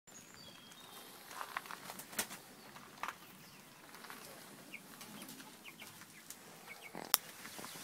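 Chicks in a heat-lamp brooder giving short, high peeps here and there, with a few sharp clicks, the loudest near the end.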